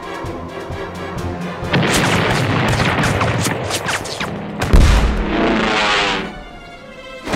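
Cartoon battle sound effects: a rapid barrage of gunfire-like cracks and blasts starts about two seconds in. About two-thirds of the way through comes one big low explosion boom, the loudest moment, then the din dies away. Background music plays under it.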